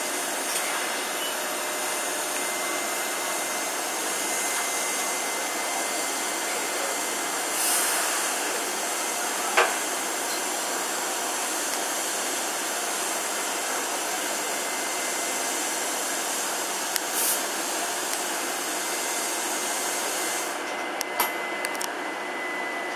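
Taiwan Railway electric locomotive standing at the platform with its blowers running in a steady whirring hiss. A sharp click or knock comes about ten seconds in, and a few lighter clicks follow near the end.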